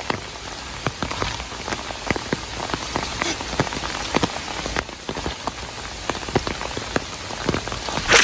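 Heavy rain falling steadily, with many separate drops ticking sharply close by.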